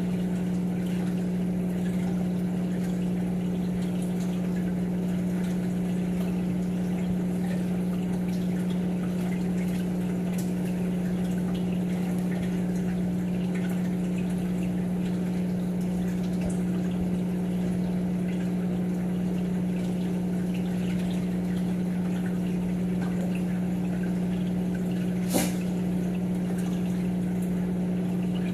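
Aquarium pump running with a steady hum, over water trickling and pouring through the tank's circulation. A single sharp click near the end.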